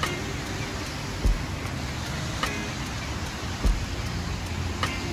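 Steady hiss of falling rain, with two low thumps a couple of seconds apart.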